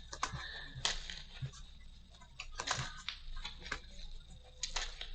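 Trading cards being handled on a tabletop: scattered light clicks and taps as the cards are picked up and gathered.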